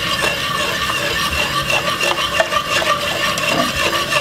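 Wire whisk stirring a thin cornmeal-and-oats porridge mixture in a stainless steel pot, a steady swishing with small clicks of the wires against the pot.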